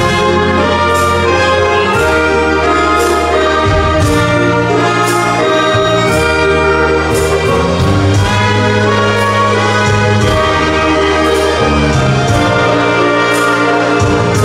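Live dance band playing an instrumental: the violin leads over brass and drums, with a held bass line and a regular beat about once a second.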